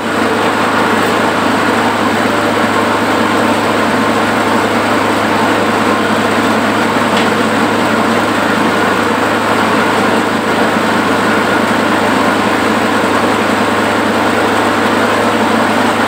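A small petrol engine running steadily, loud and at constant speed, driving a grinding machine that is milling dry corn cobs for feed.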